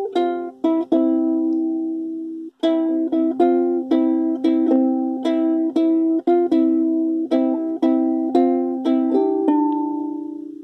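Ukulele played in strummed chords, each with a crisp attack. There is a brief break about two and a half seconds in, and the last chord is left to ring and fade near the end.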